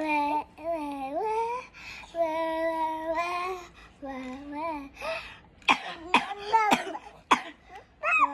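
A child sings long, held 'la' notes. About halfway through the singing breaks into several sharp coughs, with short sung or vocal bits between them.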